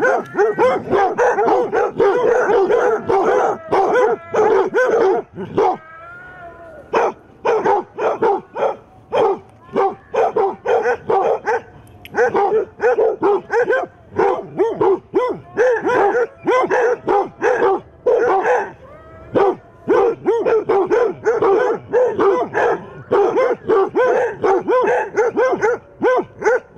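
Several basset hounds alarm-barking at a strange figure: a rapid, loud, overlapping chorus of barks with brief lulls about six seconds in and again near nineteen seconds.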